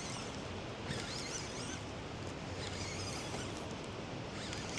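Steady outdoor background noise with faint, wavering high-pitched bird song coming and going.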